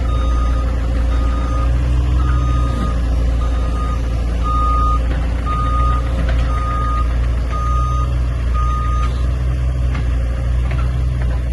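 CAT 304C mini excavator's diesel engine running steadily while its motion alarm beeps about once a second, the beeping stopping about nine seconds in.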